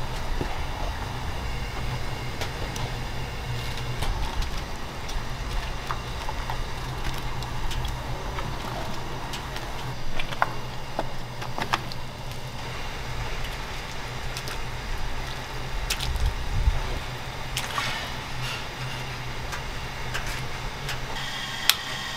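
Kitchen work noise: a steady low hum with scattered light clicks and knocks, and some wet handling and water sounds.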